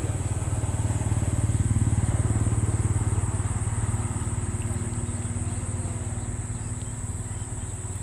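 A motor engine running with a low steady hum, growing louder over the first two seconds and then slowly fading. A thin, steady high insect buzz runs over it.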